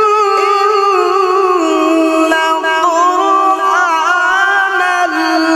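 A man reciting the Quran in the melodic qirat style, drawing out long, ornamented vowels with a wavering pitch that steps down twice.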